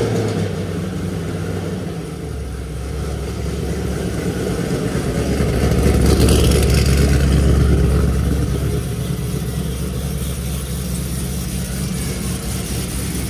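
Supercharged 6.2-litre V8 of a Camaro ZL1 running steadily at idle just after being started, its first start after a twin-disc clutch install. The engine gets louder for a few seconds around the middle, then settles back.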